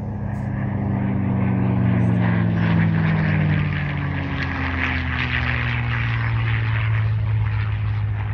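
A P-51 Mustang's Rolls-Royce Merlin V-12 engine on a low flyby: a deep propeller drone that swells to its loudest about two to three seconds in, its pitch falling steadily as the plane passes.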